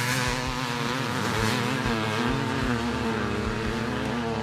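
Vintage twin-shock motocross bikes, among them a 1981 Maico 490 two-stroke, racing at full throttle, their engine notes rising and falling in pitch as the riders work the throttle.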